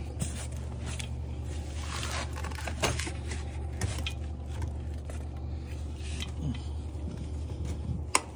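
Metal kickstand on a fat-tire e-bike being worked by hand, clicking sharply a few times as it swings and snaps into position, the loudest click near the end, over a steady low hum.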